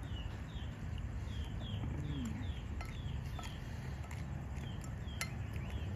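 A bird calling in a quick run of short falling chirps, about two or three a second, stopping about three and a half seconds in. Under it are a steady low hum and a few faint clicks of a spoon against a ceramic bowl.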